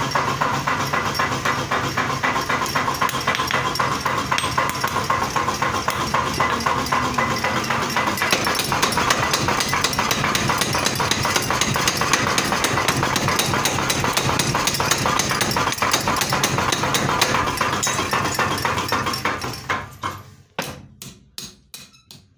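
Forging power hammer running, its ram striking in a rapid, steady hammering. Near the end the blows thin out to separate, fading strikes about two a second as the hammer winds down.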